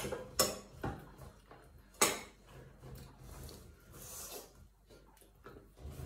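Several short clicks and knocks over quiet room tone, the loudest about two seconds in.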